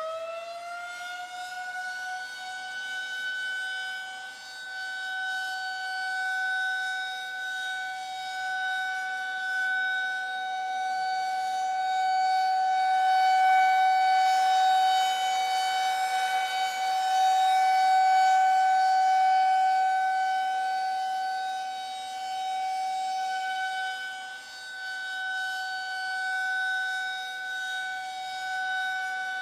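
Air-raid siren sounding the warning signal to take cover: its pitch finishes rising in the first second, then it holds one steady tone with many overtones, swelling and easing slightly in loudness.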